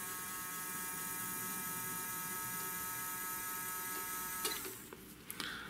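Small DC servo motor in an aircraft inter-turbine temperature indicator running with a steady whine, then cutting off suddenly about four and a half seconds in. The motor spins but the needle and counter do not turn, a fault the owner traces to a slipping friction coupler whose O-rings are worn.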